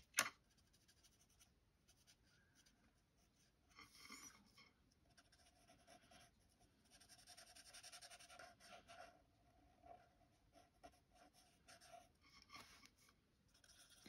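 Faint scratching of a marker tip on card stock as a stamped image is coloured in, in short patchy stretches of strokes. A sharp click comes right at the start.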